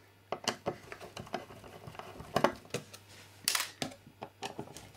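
Scattered small clicks and taps of a screwdriver working on the screws of a metal electronics housing, with a few louder knocks about two and a half and three and a half seconds in.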